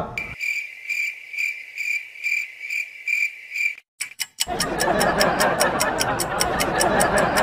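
Cricket-chirp sound effect: a high, steady trill pulsing about twice a second, which cuts off just under four seconds in. After a brief gap, a rapid clock-ticking sound effect starts over a rushing background.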